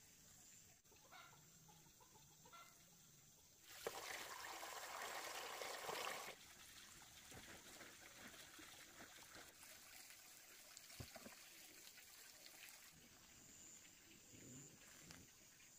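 Faint clucking of chickens, with a rush of pouring water lasting about two seconds a few seconds in.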